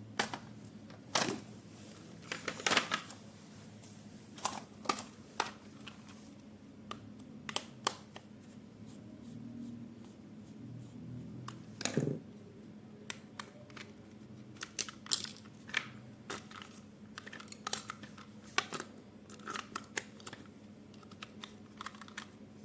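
Hands unpacking and handling a toy and its packaging: irregular light clicks, short rustles and crinkles with bits of tearing, and one louder knock about halfway through.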